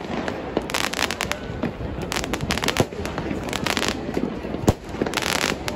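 Fireworks going off in an irregular, rapid series of sharp cracks and pops, some bunched into crackling clusters, with one louder bang near the end.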